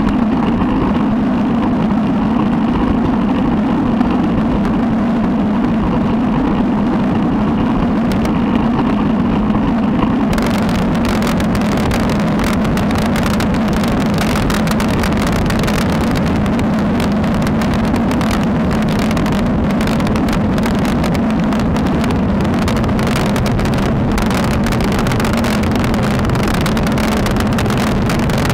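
Wind rushing over a bike-mounted action camera's microphone while riding a road bike, mixed with tyre-on-road noise: a steady, loud rumble. About ten seconds in, a crackling hiss is added on top.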